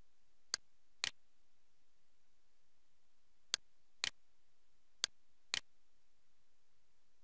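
Computer mouse clicking: six sharp clicks in three pairs, each pair about half a second apart, over faint steady hiss.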